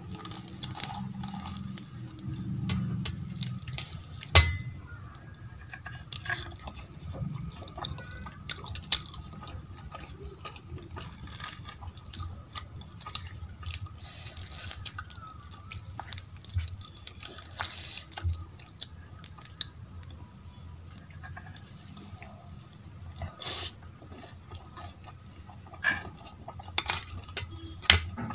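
Eating sounds: a crisp fried kachori torn by hand, mixed into potato curry and chewed, with scattered clicks. The loudest is a sharp click about four seconds in, and a spoon clinks against a steel bowl near the end.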